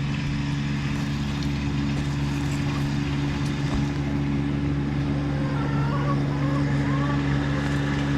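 A steady low motor hum that holds one even pitch, like an engine running at idle, with a few faint short chirps in the second half.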